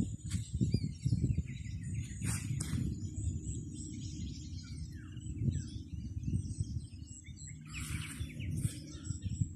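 Small birds chirping in short downward notes over a constant low rumble, with a thin steady high tone behind them and two sharp clicks a little past two seconds in.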